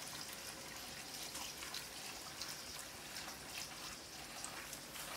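Faint trickle of water with small scattered drips and splashes, typical of water running or dripping at a kitchen sink.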